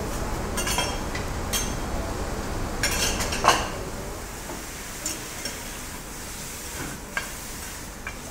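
Meat sizzling on a steel teppanyaki griddle, with metal spatulas scraping and clinking against the hot plate several times; the loudest clink comes about three and a half seconds in.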